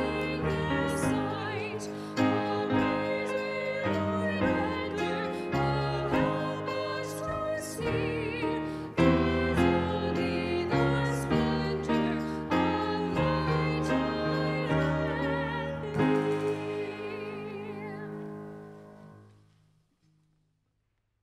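A hymn sung by a small group of voices with piano accompaniment, the singing wavering with vibrato over struck piano chords. It ends on a final held chord that dies away to silence near the end.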